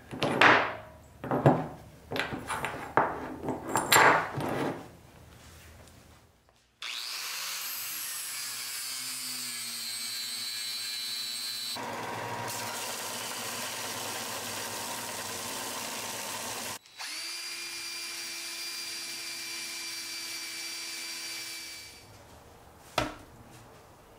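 Belt sander running steadily, a motor whine over the rush of the moving belt, cut off abruptly twice and stopping a couple of seconds before the end. It is preceded by a few seconds of aluminum and copper ingots knocking and clinking as they are handled on a work surface, the loudest sounds here, and near the end a single click as a metal ingot is set down.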